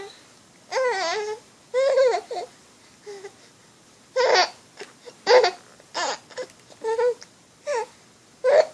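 A baby fussing: a string of short, high, whiny cries and whimpers with pauses between them, several of the later ones brief and sharp.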